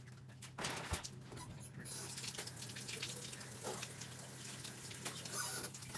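Bathroom faucet running water, a steady splashing hiss.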